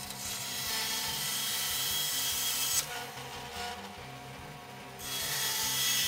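Bandsaw running while its blade cuts through deer antler. A hissing cutting noise lasts about the first three seconds, then the saw runs without cutting and the hum is left alone. The cutting noise comes back about a second before the end.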